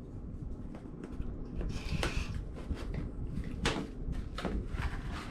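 A mystery box being opened by hand: scraping and rustling with a run of sharp clicks and knocks, the loudest about two seconds in, with a brief squeak, and again near the four-second mark.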